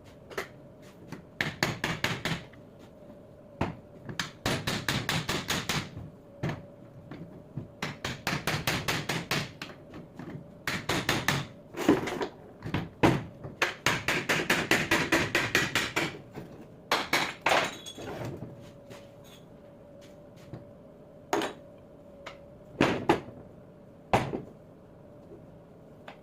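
Hand tools working on an alternator: rapid runs of sharp metal taps or clicks, many a second, in bursts of one to two seconds separated by pauses and single knocks, over a faint steady hum.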